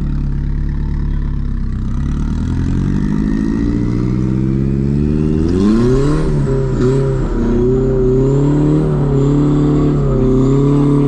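Turbocharged KA24DE four-cylinder of a Nissan 240SX, heard from inside the cabin. The revs climb over a few seconds, surge and dip sharply about six seconds in, then are held high with small swings on the throttle while the car slides on the wet surface.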